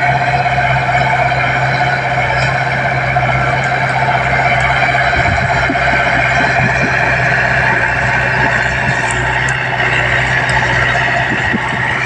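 Komatsu D20P crawler bulldozer's diesel engine running steadily under load as its blade pushes a heap of deep wet mud.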